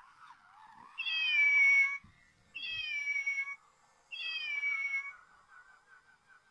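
Fairground toy cat meowing three times, each meow about a second long and falling in pitch, the first the loudest.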